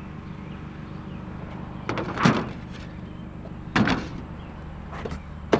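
Three sharp knocks and thumps, about two seconds apart, as a curbside drum is handled and shoved at a car, the loudest a door-like bang near the end. A car engine hums steadily underneath.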